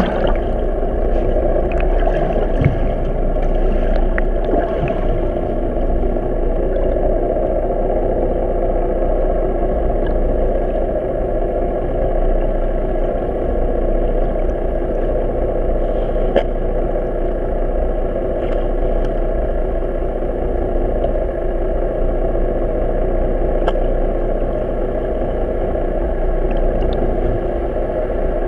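A boat engine idling, heard muffled underwater through a camera housing: a steady hum with water noise, broken by a few sharp clicks.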